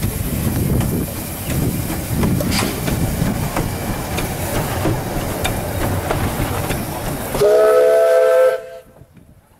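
Small steam tram locomotive hissing steam as it rolls slowly by, with clicks and clanks from its running gear, then one short blast of its steam whistle, several tones sounding at once for about a second, near the end.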